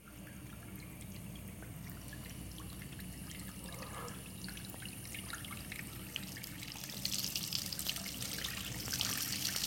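Water trickling and dripping from a leaking chrome pillar tap into a ceramic washbasin and its drain, growing louder toward the end.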